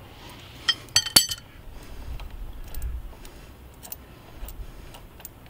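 Metal clinking as the loosened drive-pulley bolt of a Harley-Davidson Street 750 is pulled out of the front belt pulley by hand: a few sharp, ringing clinks about a second in, then faint light ticks.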